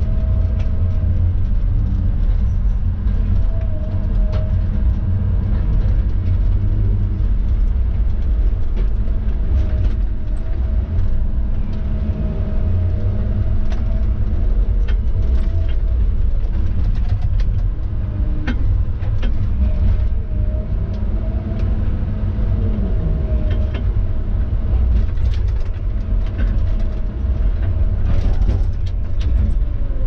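Tigercat knuckleboom log loader's diesel engine running as a steady low drone, heard from inside the cab, with a whine that wavers as the hydraulics work the boom. Scattered sharp knocks come through, clustered late on, as the grapple handles logs.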